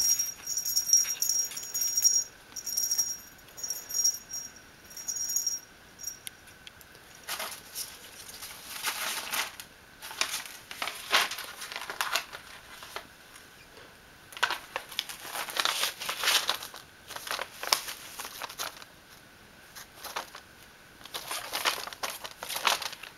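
Paper envelopes and sheets rustling and crinkling in bursts as a kitten pounces on and paws at them. Over the first six seconds a light, high tinkling comes in short bursts.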